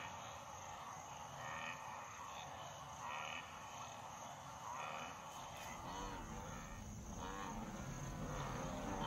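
Wildebeest herd grunting and calling, the calls coming over and over and growing deeper and stronger after about six seconds, with a steady high insect trill behind.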